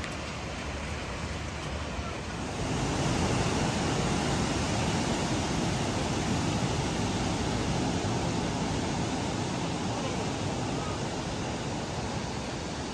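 Steady rush of falling water from Jeongbang Waterfall, growing louder about two and a half seconds in and then holding steady.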